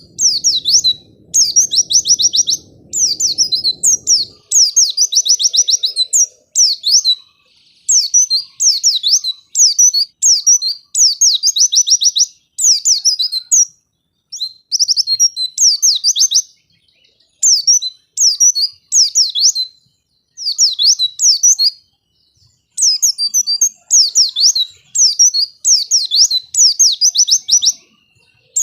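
White-eye (pleci) singing: quick, high phrases of trills and down-slurred notes, repeated about once a second with short pauses. A low rumble underneath stops about four seconds in.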